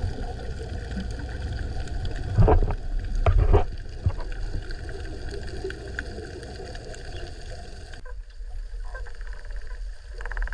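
Underwater ocean noise with a few loud, dull water swishes about two and a half to three and a half seconds in. Near the end come dolphin sounds: a rapid buzz of clicks and faint rising high whistles.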